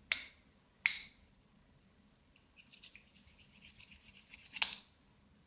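Sharp metallic clicks from a pocket knife being handled against a fidget spinner: two near the start about a second apart, each with a short ring. Then about two seconds of faint rapid ticking, and one more loud click near the end.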